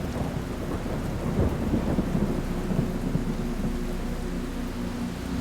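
Thunderstorm sound effect: a long crackling roll of thunder that swells and peaks about one and a half to three seconds in, over steady rain, with a faint steady low hum underneath.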